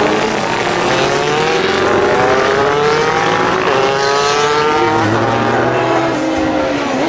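Classic racing motorcycle engines accelerating hard, their pitch rising in long sweeps, with another engine note coming in about five seconds in.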